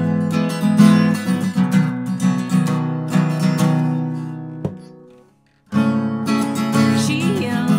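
Acoustic guitar strummed in chords. The strumming dies away about four and a half seconds in, with a sharp click just before it stops, then after a brief silence it starts again.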